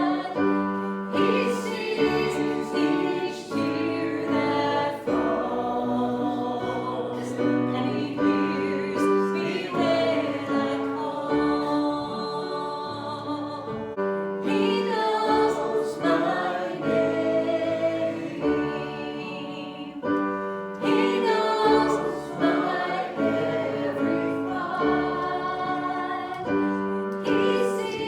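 Congregation singing a hymn together with instrumental accompaniment.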